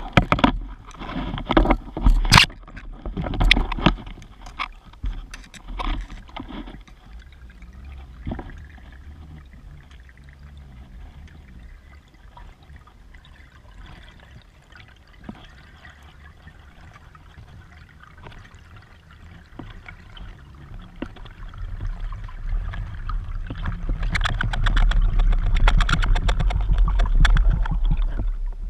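Raw underwater camera audio. A run of sharp knocks and clatter against rock comes in the first few seconds, then a quieter hiss of water. From about twenty seconds in this builds to a loud low sloshing and rushing of water near the surface.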